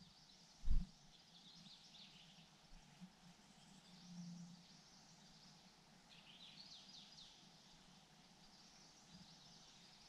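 White-throated fantail nestlings begging: quick runs of high, thin chirps around two seconds in and again, more strongly, around six to seven seconds, when the parent is at the nest feeding them. A low thump sounds about a second in.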